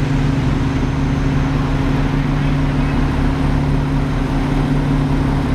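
Fire truck engine running steadily, a constant low drone that does not change in pitch.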